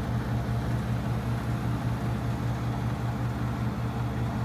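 1966–67 Fedders Weather Wheel 8,000 BTU window air conditioner running steadily, its compressor humming under the high-speed fan; the unit is working and already blowing ice cold.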